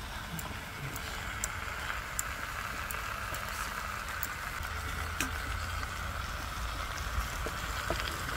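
Seasoned chicken pieces sizzling in a hot wok over a wood fire: a steady frying hiss with a few faint ticks.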